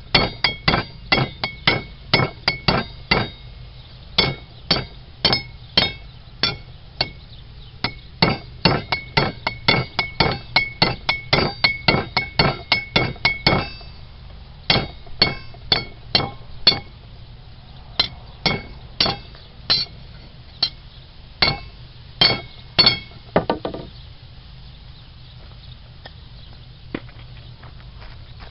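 Hammer blows on the end of a red-hot rebar rod held on an anvil, upsetting it to thicken the end, each blow with a bright metallic ring. Quick strikes come about three a second, break off briefly about halfway, then continue more slowly and stop a few seconds before the end.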